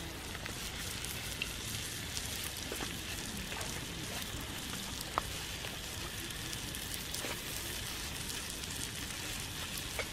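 Knife slicing thin strips off a peeled, hand-held green fruit: a few faint crisp cuts, about one every second or two, over a steady hiss.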